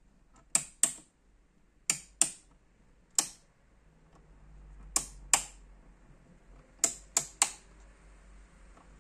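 Rotary selector switches on a valve tester clicking through their detents as the knobs are set from the settings chart. There are ten sharp clicks, in pairs, a single and a final group of three.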